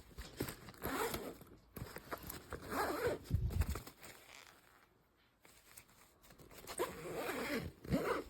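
Zipper on a fabric travel backpack being pulled in three rasping strokes, with a quiet pause near the middle.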